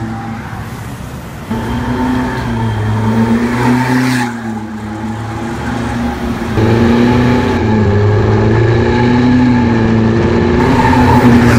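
Engine and aftermarket turboback exhaust of a 2019 Ford Raptor pickup running under load, its drone rising and falling in pitch. It gets louder about a second and a half in, and again a little past halfway.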